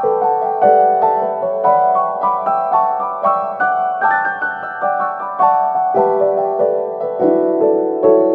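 Background music: a piano playing a steady, flowing pattern of repeated notes.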